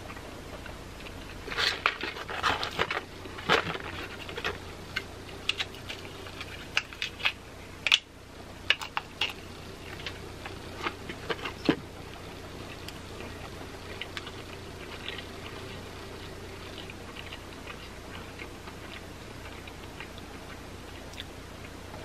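Close-up crunching and chewing of crisp breaded fried chicken tenders: sharp crackles come thick and fast through the first half, then thin out into quieter, sparser chewing.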